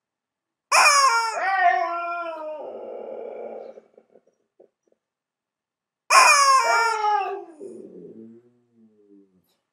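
A squeezable rubber chicken toy squawks loudly twice, about five seconds apart, and a husky howls in reply, its calls falling in pitch and fading after each squawk.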